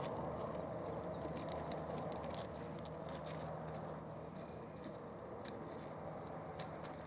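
A flock of small birds calling as it flies overhead: scattered short high clicks and chirps, with brief runs of rapid ticking, over a steady low rumble of background noise.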